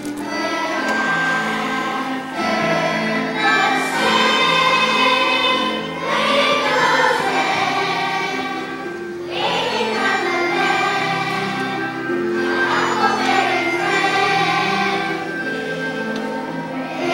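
Large children's choir singing a song together, in phrases a few seconds long.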